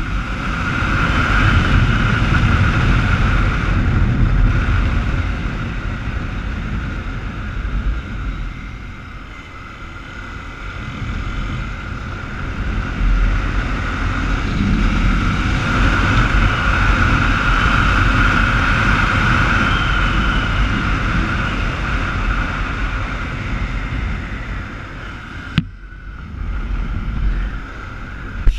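Motorcycle riding along a street: engine running under wind rush on the camera's microphone, easing off about a third of the way in and then building again. A single short knock near the end.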